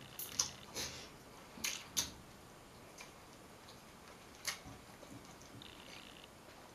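Eating sounds from a seafood boil eaten by hand: a few sharp clicks and smacks in the first two seconds and another about four and a half seconds in, as crab is picked and fingers are brought to the mouth.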